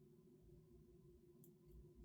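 Near silence: faint room tone with a steady low hum, and two faint light clicks about one and a half seconds in.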